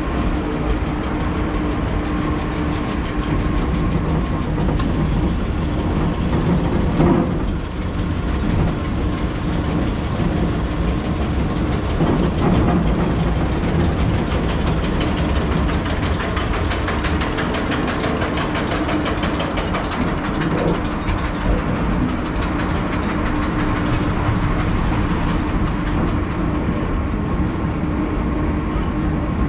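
Sky Ship amusement-ride car running along its elevated rail: a steady rumble of wheels and drive with a constant hum, and brief louder clatters about 7 and 12 seconds in.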